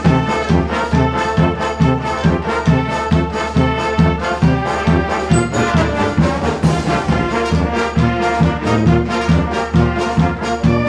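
Brass band music: horns playing a melody over a steady, driving beat.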